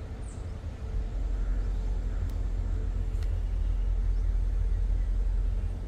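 Low, gusty rumble of wind on the microphone, growing louder about a second in.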